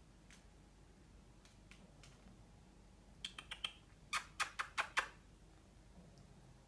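Quick runs of sharp clicks or taps: a run of four about three seconds in, then a louder run of five right after, with a few faint single clicks before them.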